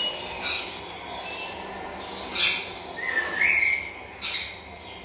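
Forest birds calling: several short separate calls and a whistled note that slides up in pitch about three seconds in, over a steady background hiss.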